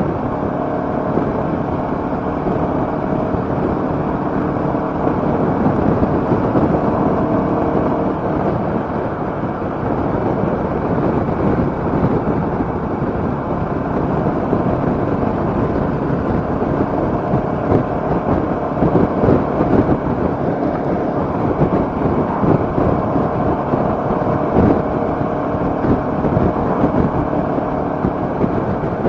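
Ride noise on a Royal Enfield Meteor 350: wind rushing and buffeting over the microphone in a crosswind, with the single-cylinder engine running steadily underneath.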